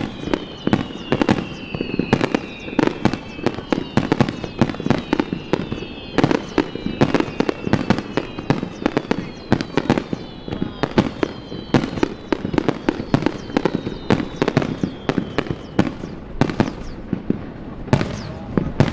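Fireworks display: a dense barrage of shell bursts going off several times a second, with high whistling tones gliding down in pitch through most of the barrage.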